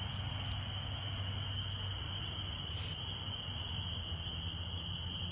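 Crickets trilling steadily in one unbroken high tone, over a low steady hum.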